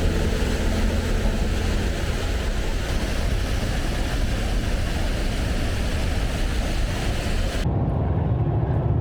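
Vehicle driving noise: a steady rush of road and wind noise, which changes abruptly near the end to a lower, muffled rumble.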